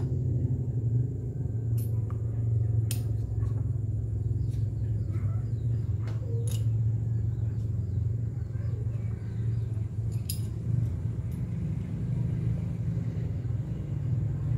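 Steady low rumble, with about half a dozen light, sharp clicks of small parts as a mount is fitted onto a handheld night-vision scope.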